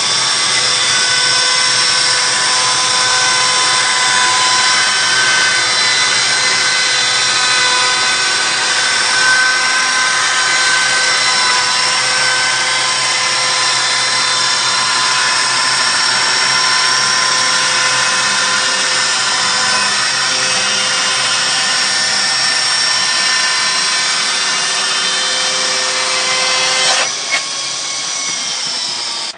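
Snik 10 hp electric chainsaw mill sawing lengthwise through a pine beam: a steady high whine with several steady tones over the rasp of the chain in the wood. Near the end the sound drops in level and eases off.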